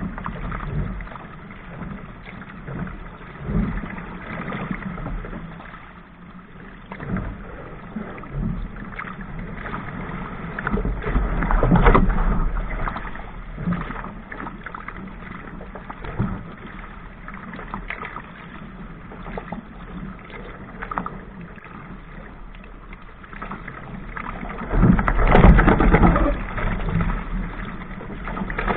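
Water splashing and rushing against the hull of a Laser sailing dinghy moving through choppy water, with wind buffeting the microphone. Two louder surges of splash and buffeting come about twelve seconds in and again near the end.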